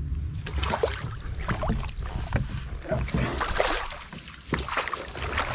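Water splashing and sloshing around a canoe, with irregular knocks on the hull, over a low rumble of wind on the microphone.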